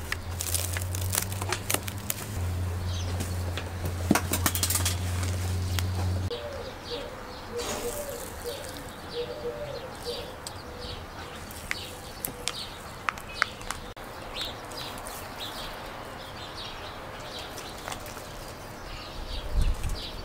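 Cling film crinkling as a covered tray of dough balls is handled, over a low steady hum that stops about six seconds in. Then come light clicks and scrapes of a metal spoon scooping cottage cheese into a glass bowl.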